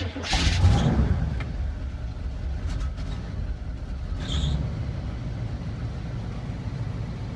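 Carbureted engine of a 1978 GMC Diplomat motorhome starting after the throttle has been pumped, louder for the first second or so, then settling into a steady fast idle. A short high-pitched sound comes about four seconds in.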